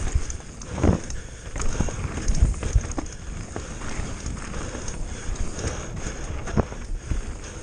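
Mountain bike descending a rough gravel trail at speed: tyres running over loose stones with a constant crunching hiss, and the bike rattling and knocking irregularly over bumps and rocks, the sharpest knocks about a second in and around two and a half, three and six and a half seconds.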